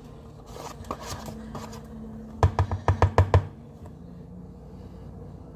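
A spoon mixing butter into cookie dough in a bowl, with soft scraping and then a quick run of about six sharp knocks against the bowl about halfway through.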